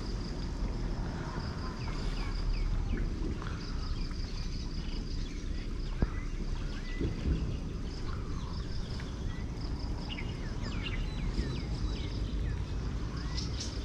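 Birds and insects: many short falling bird chirps scattered through, over an insect's steady pulsing trill that grows louder near the end, with a low steady rumble underneath.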